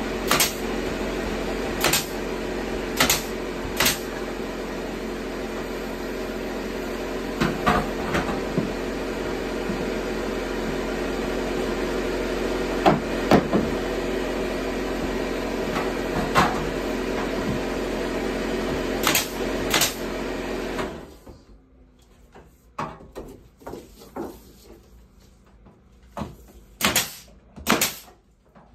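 Pneumatic brad nailer firing nails into pine ceiling boards: sharp single shots at irregular intervals, a dozen or so in all. Behind them an air compressor runs steadily and shuts off about two-thirds of the way in, after which the nailer's shots stand alone.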